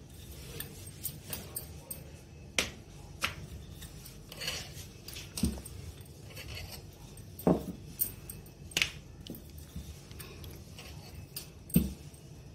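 Wooden rolling pin rolling out naan dough on a floured granite countertop: a faint rolling sound broken by irregular knocks and clicks, a few of them heavier thumps.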